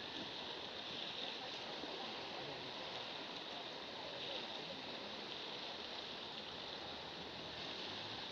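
Steady seaside wash of small waves against shoreline rocks, an even rushing noise with no distinct splashes.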